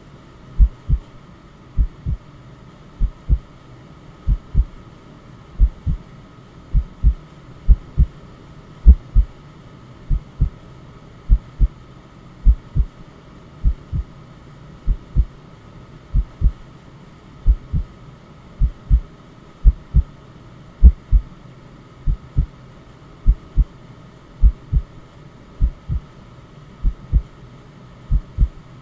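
Slow, steady heartbeat, a low double thump (lub-dub) a little more often than once a second, over a steady hiss of white noise.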